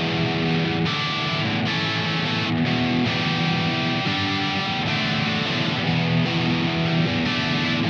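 SLX Raven Modern Pro 24 HH electric guitar with Seymour Duncan humbucking pickups, played with a distorted tone: a run of sustained chords and notes changing about once a second.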